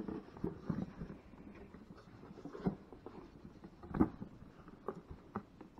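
A large cardboard box being handled and opened by hand: scattered soft taps and knocks of cardboard, with a sharper knock about four seconds in.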